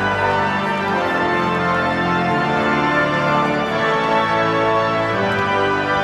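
The Royal Albert Hall's pipe organ playing slow, sustained chords that shift roughly once a second.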